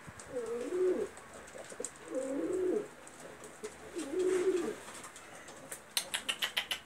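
Domestic pigeons cooing: three drawn-out, rolling coos about a second and a half apart. Near the end, a fast, even run of sharp clicks sets in, about six a second.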